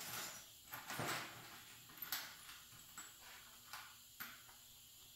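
Irregular light knocks, scrapes and rustles of someone moving about and handling small parts, the loudest about a second in and a sharp one just after two seconds.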